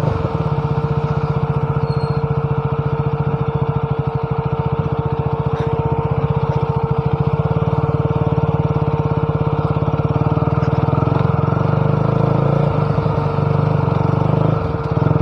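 Motorcycle engine running at a steady speed, cutting in suddenly at the start and staying even throughout.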